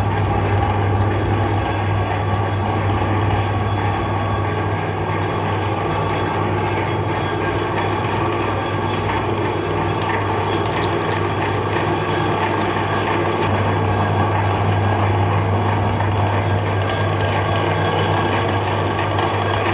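Electric meat grinder motor running steadily with a low hum while it grinds ice cream.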